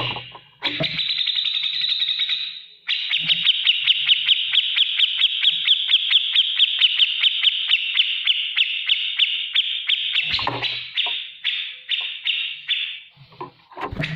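Grey-cheeked bulbul (cucak jenggot) singing fast, rapid-fire trills of high repeated notes, with one long unbroken run of about seven seconds in the middle and shorter phrases around it. A few short low thuds fall between the phrases.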